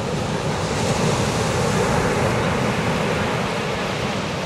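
Steady rushing noise of ocean surf breaking on the beach, with wind buffeting the microphone.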